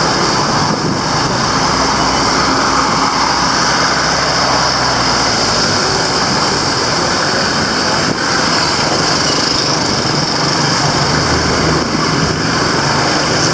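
Steady street traffic noise, with motor vehicle engines running close by.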